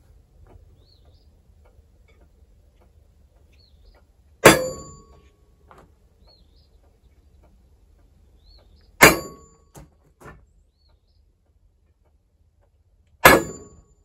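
Hammer striking a punch held on a newly cast malleable-iron sawmill guide rail, marking the hole centres for drilling. Three sharp, ringing metallic strikes, about four and a half seconds apart.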